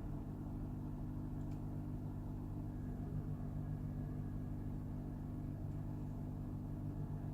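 Toyota Mark X GRX130's air-conditioning system making an abnormal low droning hum ('buooon'), several steady low tones held throughout. The drone comes only while the air conditioning is on, whatever the A/C or recirculation setting, and stops when it is switched off. Its cause is unknown to the owner.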